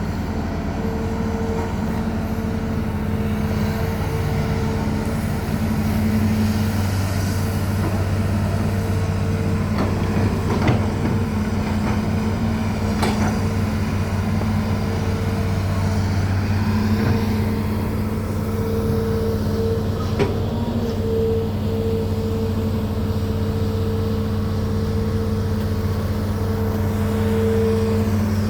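Hitachi Zaxis 210F hydraulic excavator's diesel engine running steadily at an even pitch, with a few sharp knocks about a third of the way in and again about two-thirds in.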